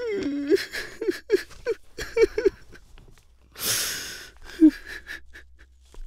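A man sobbing: a quick run of short, broken sobs, then a long ragged breath and one more sob.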